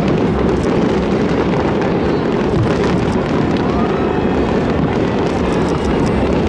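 Aerial fireworks going off in a dense, continuous barrage. The overlapping bangs merge into a steady loud rumble, with sharp crackles on top.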